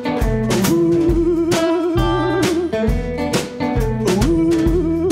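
Electric blues band playing an instrumental passage: an electric guitar holds wavering, bent notes over electric bass and a drum kit keeping a steady beat.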